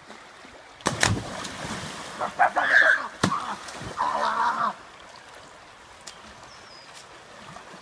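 A person jumping into a shallow creek: a loud splash about a second in, then a few seconds of churning, sloshing water, settling into the steady rush of the flowing stream.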